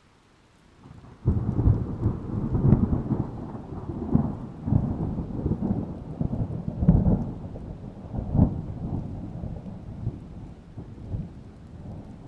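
A thunderclap breaks in suddenly a little over a second in, then rolls on in deep rumbles with several sharper cracks before slowly dying away, over falling rain.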